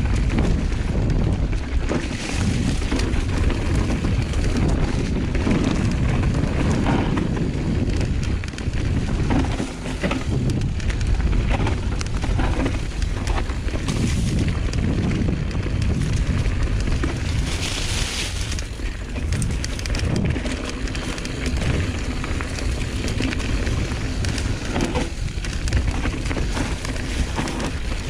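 Mountain bike ridden fast down a dirt trail: steady tyre noise on the ground and constant clattering of the chain and frame over bumps, with heavy wind rumble on the action camera's microphone.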